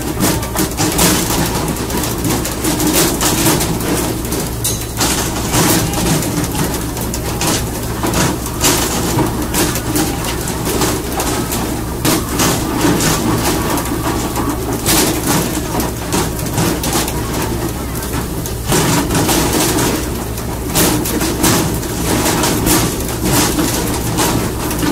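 Fishing boat's engine running steadily under a constant wash of sea and spray, with irregular slaps and thumps as fish are hauled aboard on poles and hit the deck.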